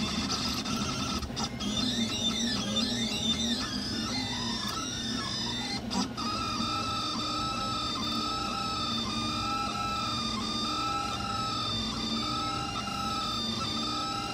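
3D printer printing: its stepper motors whine in gliding, criss-crossing pitches as the print head moves, over a steady machine hum. From about six seconds in they settle into a steadier whine with small wobbles in pitch.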